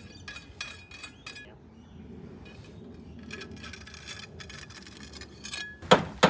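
Scattered light clinks and taps of small hard objects being handled, some with a brief ring, then louder knocks near the end.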